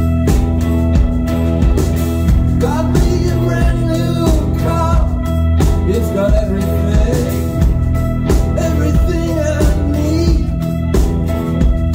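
Live rock band playing loud: drums keep a steady beat under held electric guitar chords, and a male singer's vocal comes in about two and a half seconds in.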